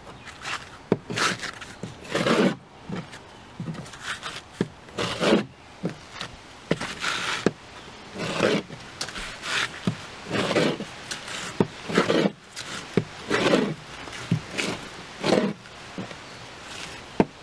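Benchmade Triage folding knife slicing through a sheet of tar paper, a run of short rasping strokes about one a second, with a few sharp clicks between them.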